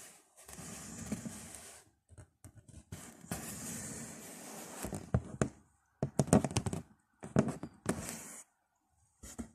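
Packaging and goods being handled by hand: rustling and scraping, with several sharp knocks and clatters in the second half.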